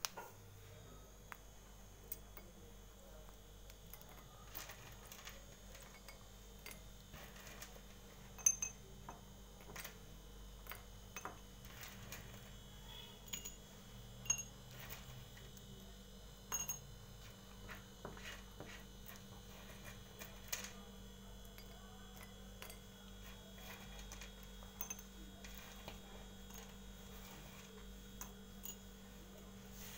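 Pieces of broken slate pencil clicking and clinking as they are picked up and dropped into small terracotta diyas. The taps are faint and irregular, with a sharper click about eight seconds in.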